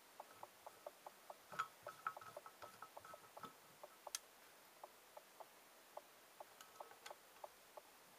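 Faint light ticking, a few ticks a second, with a handful of louder short clicks of small metal parts about two seconds in, again at four seconds and near the end, as screws holding TO-220 power MOSFETs are fastened onto an aluminium heatsink.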